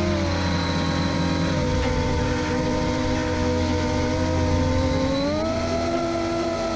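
FPV drone's motors and propellers whining, the pitch dropping as the throttle eases just after the start and climbing again about five seconds in.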